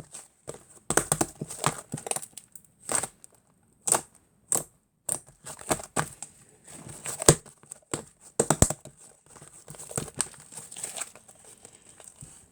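Hands pressing and stretching soft, fluffy mixed slime: irregular runs of quick sticky clicks and crackles, with a few sharper pops, the loudest about seven seconds in.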